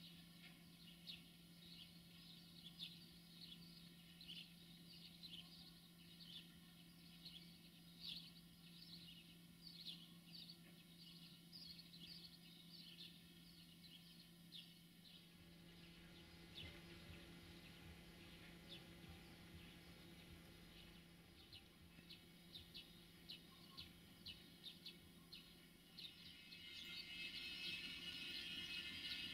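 Faint, scattered bird chirps over a low steady hum. Near the end a louder, rising noise comes in as a diesel shunting locomotive draws close.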